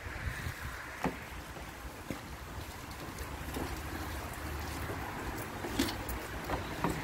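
Water jetting from a self-service car wash pressure lance against a car body: a steady hiss over a low rumble, with a few sharp clicks.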